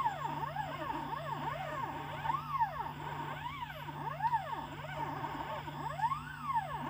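Stepper motors of a CNC pen plotter whining in repeated rising-and-falling sweeps as the pen head speeds up and slows down along each PCB track segment, often two or more sweeps overlapping, over a steady low hum.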